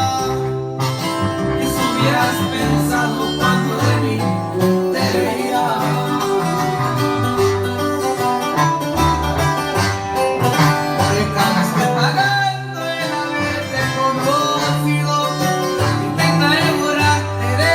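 Music with plucked guitar over a bass line that changes note every second or so, with a wavering melody line that may be singing.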